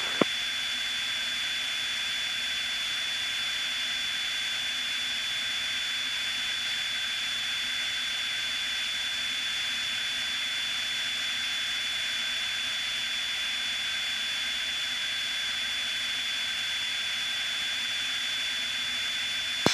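Steady cabin noise of a Piper Cherokee light aircraft in flight: an even hiss with a thin high steady whine and almost no low rumble. One short click comes just after the start.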